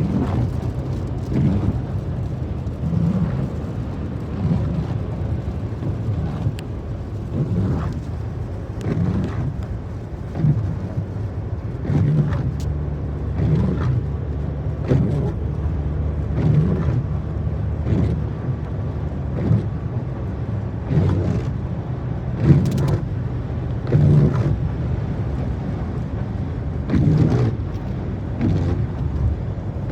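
Windscreen wipers of a 2024 Mercedes-Benz GLE squeaking on each sweep, about every second and a half, over the steady rumble of the car being driven. The squeak is a recurring fault that several workshop repairs have not cured.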